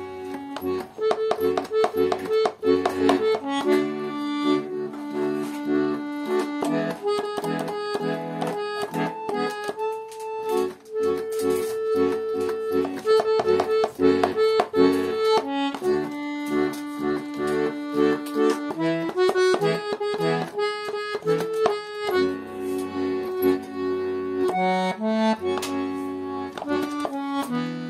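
Tula garmon, a Russian button accordion, playing a song. A melody on the right-hand buttons runs over left-hand bass notes and chords.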